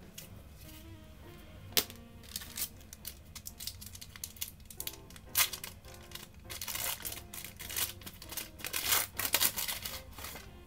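Foil trading-card pack wrapper being crinkled and torn open: scattered sharp crackles at first, growing into a busy run of crinkling in the second half.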